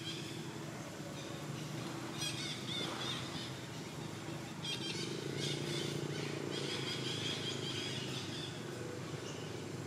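Outdoor ambience: birds chirping in short bursts, a few times, over a steady low hum.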